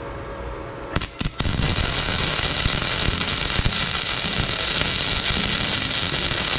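Wire-feed welder's arc on a steel frame: a few short crackles as the arc strikes about a second in, then steady crackling as a continuous weld bead is run.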